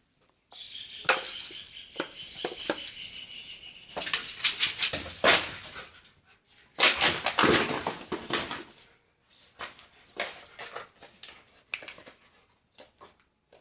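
Rottweiler playing with a plastic bottle: the plastic crackles and crunches in sharp bursts, loudest in the middle, with a high thin whine during the first few seconds.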